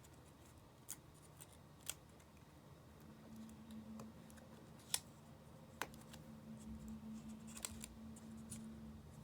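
Light, sparse clicks and taps of small tools and parts on an opened iPhone 5's internals, about five in all, with a faint steady hum from about three seconds in.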